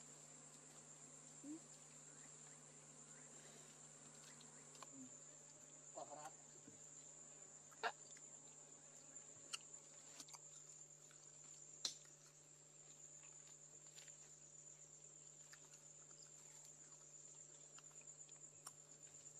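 Faint, steady, high-pitched chirring of insects such as crickets, with a low steady hum under it and a few scattered sharp clicks, the loudest about eight and twelve seconds in.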